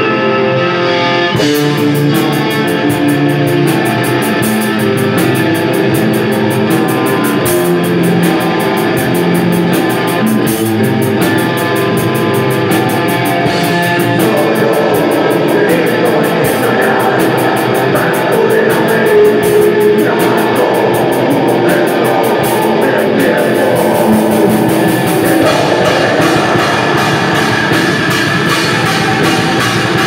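Black metal band playing live: distorted electric guitars and bass over fast, dense drumming. The guitars ring alone briefly before the drums come in about a second and a half in.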